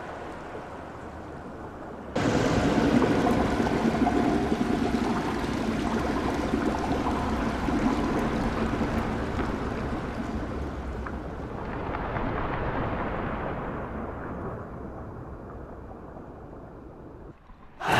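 A fireworks display going off in a dense, continuous crackle and hiss of many fireworks at once, starting suddenly about two seconds in and slowly fading over the last few seconds.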